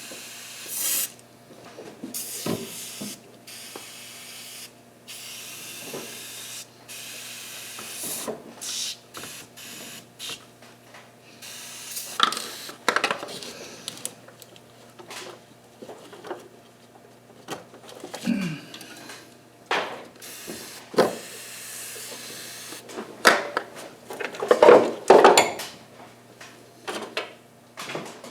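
Metal hand tools and small engine parts being handled, moved and set down: scattered clinks, scrapes and knocks over a steady background hum, with a busier stretch of clatter near the end.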